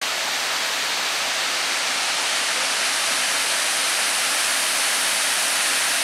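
Water pouring down a concrete dam spillway in two falls: a steady, hissy rush.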